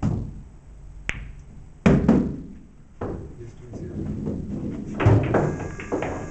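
Pool balls on a table after a shot: a sharp click about a second in and a heavy thud near two seconds, the cue ball running into a pocket for a scratch, a foul. Voices and further knocks follow in the second half.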